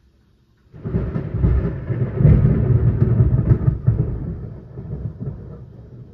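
Thunder: a clap that starts suddenly about a second in and rolls on as a loud, deep rumble for about three seconds, then fades to a lower grumble.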